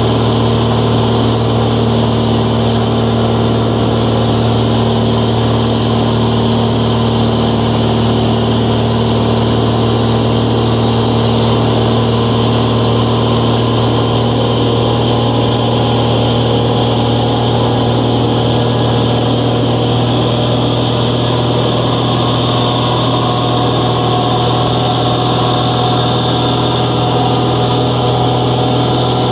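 Cabin drone of a 1993 Velocity S-FG's 180 hp pusher piston engine and propeller in steady flight: a constant low hum with even overtones and a rushing noise over it, unchanging in pitch and level.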